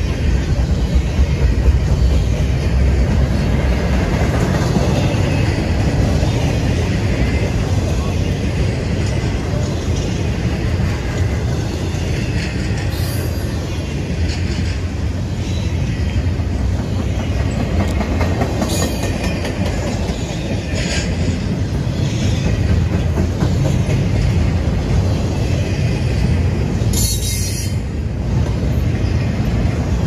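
Double-stack intermodal container train rolling past at close range: a steady, loud rumble of steel wheels on rail. A few brief high-pitched wheel squeals cut in, the longest near the end.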